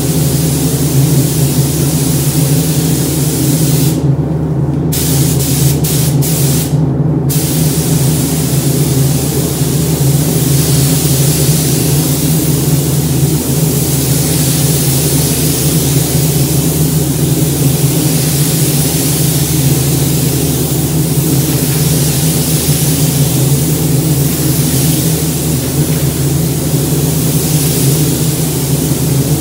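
Gravity-feed automotive paint spray gun hissing steadily as paint goes onto a truck body panel, the hiss cutting out briefly twice, about four and seven seconds in. A steady low hum runs underneath.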